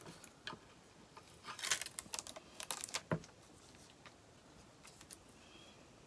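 Light crackling and small clicks as a cut stencil is peeled off a wooden birdhouse and handled, bunched together from about a second and a half in, with a soft knock near the middle and a few faint ticks after.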